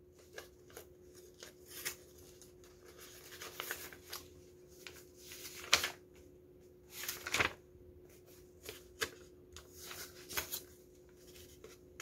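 Paper being handled: short rustles and light taps come and go, with two louder rustles a little before and after the middle. A faint steady hum runs underneath.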